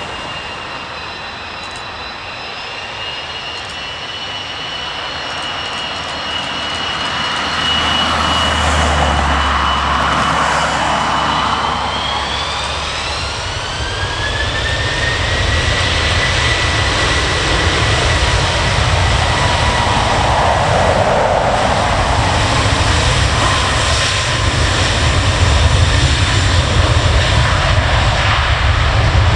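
Jet airliner engines whining steadily, then spooling up about twelve seconds in: the whine rises in pitch and a deep rumble builds and holds, as the engines come up to takeoff thrust.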